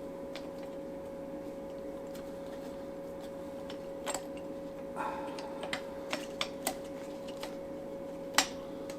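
Scattered light clicks and taps of hands working a timing belt onto the cam pulleys of a Ducati 848 engine, starting about four seconds in, the sharpest near the end, over a steady background hum.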